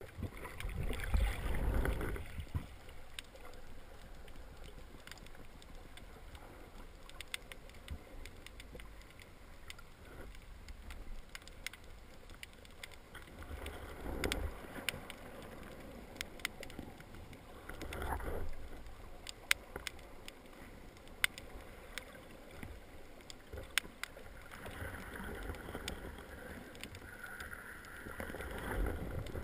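Underwater sound heard through a GoPro's waterproof housing: a low, muffled rush of water that swells a few times as the diver moves, with many sharp little clicks and crackles scattered throughout.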